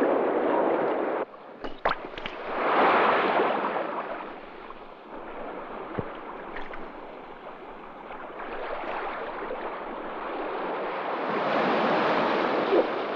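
River water rushing and surging over rocks, swelling louder about three seconds in and again near the end, with a few sharp clicks between one and two seconds in.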